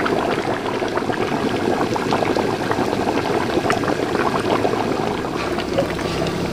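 Large pot of chicken karahi boiling hard in the juices released by the chicken and tomatoes, a steady dense bubbling and popping as that liquid cooks down.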